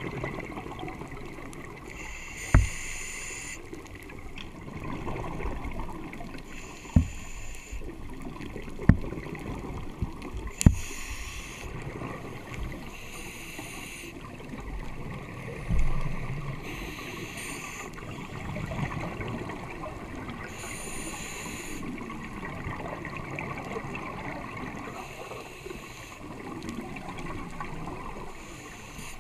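Scuba diver's regulator exhaust bubbles bursting in a gurgle every three to four seconds, heard underwater through a camera housing. A few sharp clicks come in the first half.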